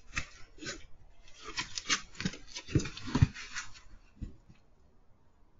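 Animals scuffling: a run of harsh hissing bursts and several dull thumps, the loudest a little past three seconds. It dies away after about four seconds.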